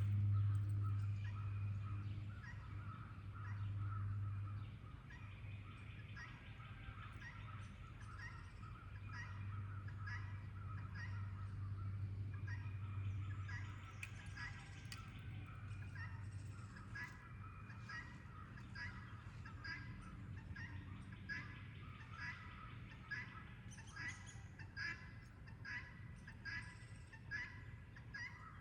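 Birds calling over and over in short repeated calls, coming in a regular series of about one to two a second in the second half, over a low steady hum that fades out about halfway through.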